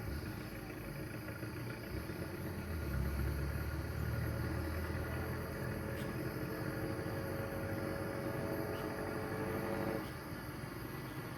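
A motor vehicle's engine running. A low rumble swells about two and a half seconds in, then gives way to a slowly rising whine that cuts off abruptly about ten seconds in.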